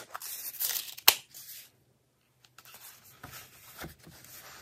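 Stiff kraft-cardboard packaging being handled and opened: a loud papery rasp, a sharp snap about a second in, then softer rustling and scraping of the card flaps being unfolded.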